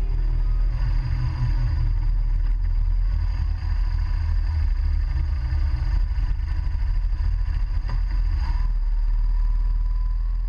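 Motorcycle engine running with a steady low rumble and wind noise, picked up by a camera mounted on the moving bike.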